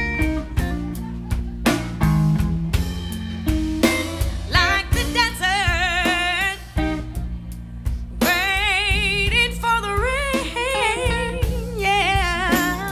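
Live band playing a slow blues number on drum kit, bass and guitar. About four seconds in, a lead melody with wide vibrato comes in over the band, pauses briefly and returns.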